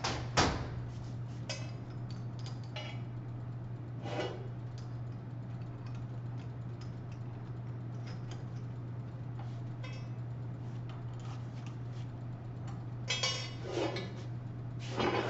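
Scattered metallic clinks and taps as drill bits are handled and a larger bit is swapped into the drill press chuck, over a steady low hum.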